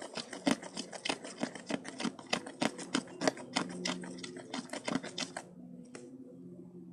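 Sticky homemade slime being stirred in a small container: fast, irregular clicking and sticky smacking that stops about five and a half seconds in.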